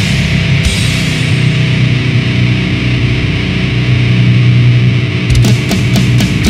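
Heavy metal band playing live: distorted electric guitar and bass guitar hold heavy low chords, with a cymbal crash at the start and fast drum hits coming back in about five seconds in.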